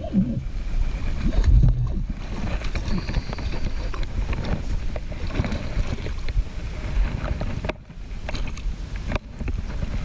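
Steady low rumbling wind and water noise from out on the water, with a few faint light knocks.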